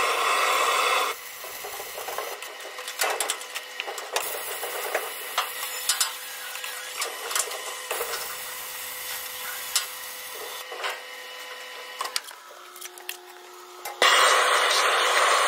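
Dual-shield flux-cored arc welding with 1/16-inch wire under argon/CO2 gas: the arc crackles and sputters with irregular sharp pops. A preheat torch's loud, steady hiss is heard for about the first second and cuts back in abruptly near the end.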